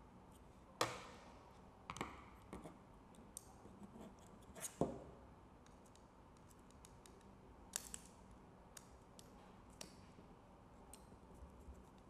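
Faint, scattered small clicks and taps of a small screwdriver working the screws of a metal mounting bracket on a mini camera, with a handful of sharper clicks standing out among lighter ticks.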